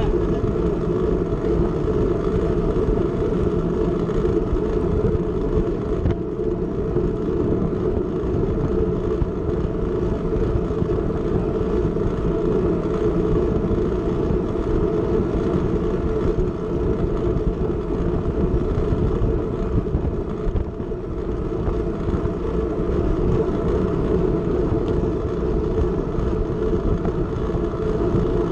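Steady wind rush and tyre noise on a camera riding on a track bicycle at race speed: a deep, continuous rushing that holds level throughout.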